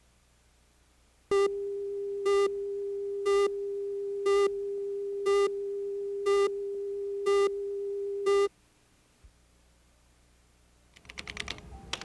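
Steady reference tone on a broadcast videotape leader, with a short, louder beep once a second, eight beeps in all. The tone starts about a second and a half in and cuts off suddenly about seven seconds later. Faint sound creeps in near the end as the programme audio begins.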